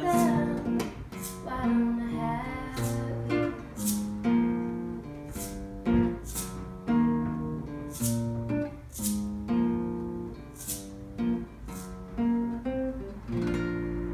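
Acoustic guitar playing a slow picked instrumental passage, ending on a chord that rings out near the end. A woman's last sung note trails off in the first second.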